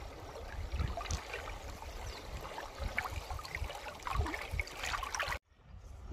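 Running or trickling water with scattered small splashes and a low, uneven rumble, cutting off abruptly near the end.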